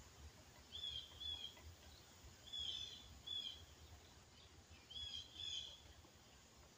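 A bird in the treetops calling: short, high two-note calls repeated about every two seconds, faint over a low rumble of distant traffic.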